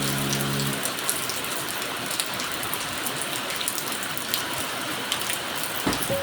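Steady rain falling, an even hiss with many individual drops ticking sharply.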